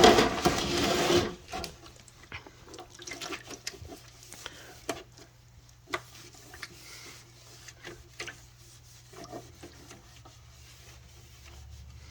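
Damp microfiber cloth scrubbing the surfaces of an old fridge: a loud rasping rub for about the first second and a half, then quieter scattered rubs and light knocks.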